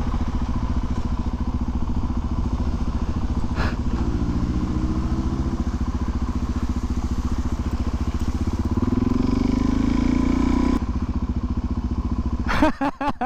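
Motorcycle engine running close to the microphone. Its pitch steps up a few seconds in, then climbs steadily as it revs and accelerates, and breaks off sharply. A few sharp thumps follow near the end.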